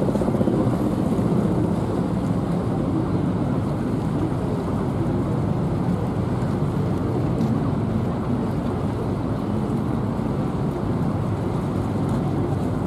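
Wind buffeting the camcorder microphone in a steady, dense low rumble, with the engines of passing river boats mixed in.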